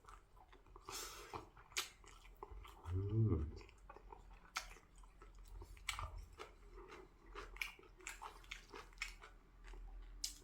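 A person chewing food close to the microphone, with many short wet mouth clicks and smacks. A brief hummed "mm" comes about three seconds in.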